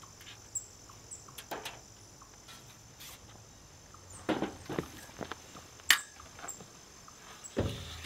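Folding metal camp table being opened and set up on a paver patio: scattered clicks, knocks and rattles of its legs and top, with shuffling footsteps and one sharp click about six seconds in. A heavier low thump comes near the end, over a faint steady high background drone.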